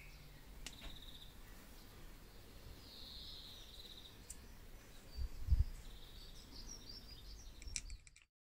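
Quiet room tone with faint bird chirps a few times, and a soft low bump about five and a half seconds in as the metal parts of the hair drier are handled. The sound drops out just before the end.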